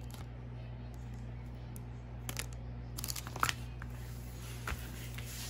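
Plastic-film-covered diamond painting canvas crinkling and rustling as it is handled, unrolled and laid flat, with a cluster of sharper crackles about three seconds in.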